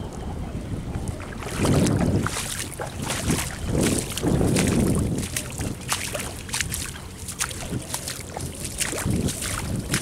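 Wind buffeting the microphone in gusts, strongest about two seconds in and again around four to five seconds, with scattered short clicks and crackles throughout.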